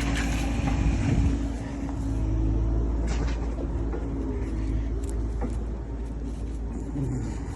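Excavator engine running steadily as a low rumble, with a few faint knocks of the machine at work.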